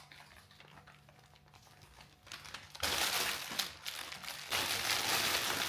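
Gift wrapping crinkling and rustling as a gift is pulled out of its bag. It is faint at first and turns loud and busy about three seconds in.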